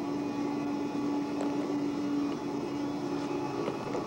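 Airport moving walkway running: a steady mechanical hum holding one constant low tone over a faint rumble.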